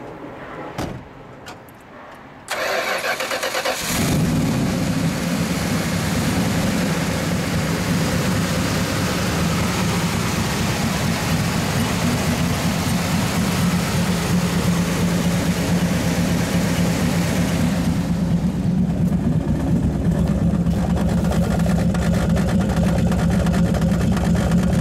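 1971 Plymouth Hemi 'Cuda's 426 Hemi V8 cranked by the starter for about a second and a half, then catching about four seconds in and running on. About eighteen seconds in, the higher noise fades and it settles into a deeper, steady idle.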